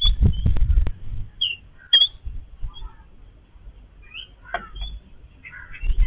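Yellow-billed babblers giving short, scattered chirping calls. A burst of low rumbling and clicks comes in the first second.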